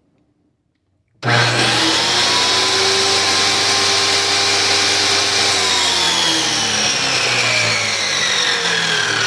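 Corded circular saw switched on about a second in and running, a loud steady motor whine whose pitch gradually falls over the last few seconds.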